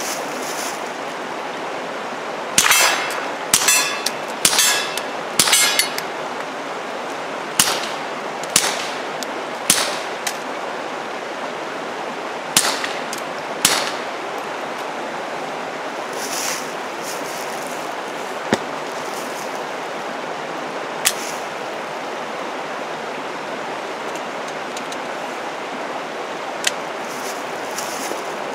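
Taurus TX22 .22 LR pistol fired through a fuel-filter suppressor with standard-velocity, non-subsonic ammunition: nine suppressed shots, each a sharp crack with a short echo. They come in a quick string of four, then three, then two. A few fainter sharp clicks follow later.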